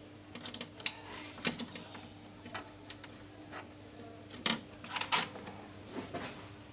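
Scattered light clicks and knocks as a TV backlight inverter board and its cable connectors are pressed into place on a metal chassis, the sharpest about a second in and again around four and a half to five seconds in, over a faint steady hum.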